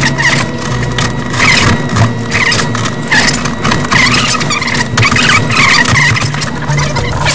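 Hand cutting to enlarge a hole in wall paneling: repeated scraping strokes with short squeaks.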